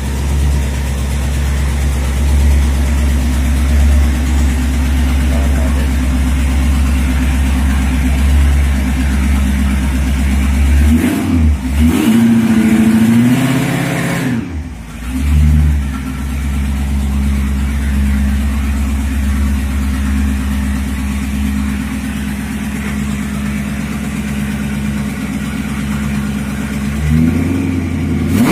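Roots-supercharged engine of a 1969 Dodge Charger idling, revved once about eleven seconds in, the pitch rising and falling back over about three seconds. It starts to rev again near the end.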